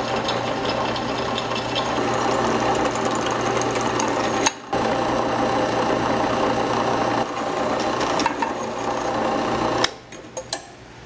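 Drill press running, its twist bit cutting into the wall of a steel EMT conduit with a steady motor hum. The sound drops out briefly about four and a half seconds in and stops about ten seconds in, leaving a few light clicks.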